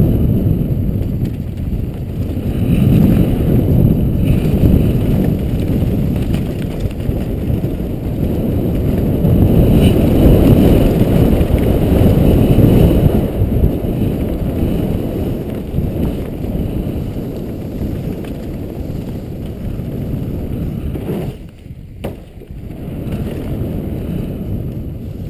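Wind buffeting a helmet camera's microphone together with a mountain bike's tyres and frame rattling over a dry dirt downhill trail, a continuous rumble that swells and eases with speed. A sharp click comes during a brief lull near the end.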